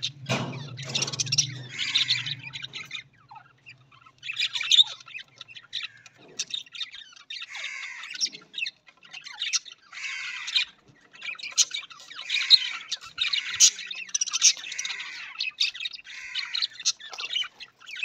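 Budgerigars chattering in repeated bursts of warbling chirps and squawks, with short pauses between bursts.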